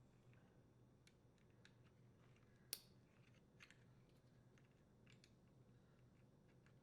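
Faint, sharp clicks of wire connectors being pushed onto the dishwasher control panel's terminals, the clearest a little under three seconds in and a smaller one about a second later, against near silence.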